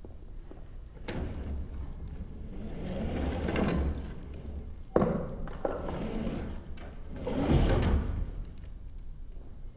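Traxxas TRX4 1/10-scale RC crawler's electric motor and drivetrain revving in bursts as the truck churns through loose dirt, the pitch gliding up and down three times, with a sharp knock about five seconds in.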